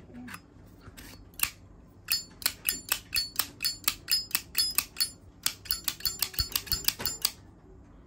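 Zippo lighter's hinged lid snapped open and shut over and over, a fast run of sharp metallic clicks about four a second, starting about two seconds in and stopping about five seconds later.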